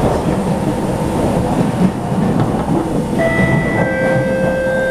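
SMRT C651 metro train running on elevated track, heard from inside the car: a steady rumble of wheels on rail with some clickety-clack. About three seconds in, a steady whine at a few pitches joins in.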